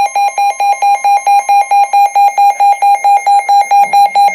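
A weather alert radio's alarm sounds for a new severe thunderstorm warning: a loud electronic beep pulsing about five times a second. A fainter steady tone sits under it for the first two seconds.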